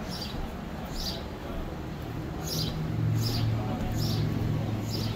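Birds chirping: short high notes that slide downward, repeated every half second to second and a half. A low steady hum comes in about two seconds in.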